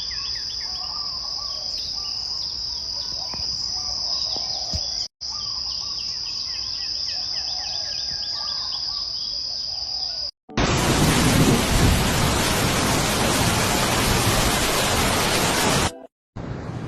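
Birds chirping repeatedly, with short falling calls, over a steady high insect drone. After a cut, about ten seconds in, this gives way to a louder, even rushing noise lasting about five seconds.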